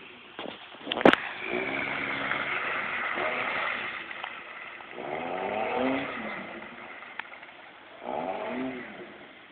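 1996 Jeep Grand Cherokee ZJ's 4.0-litre straight-six revving in three surges under load in mud, its pitch rising with each push of the throttle. A sharp click about a second in.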